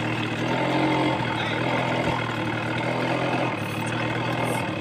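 A motor vehicle's engine running at a steady pitch with a low drone, which eases off about three and a half seconds in.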